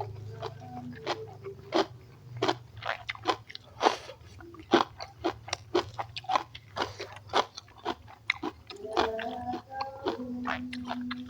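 A person eating close to the microphone: crunching bites and wet chewing, with many irregular sharp crunches and mouth smacks.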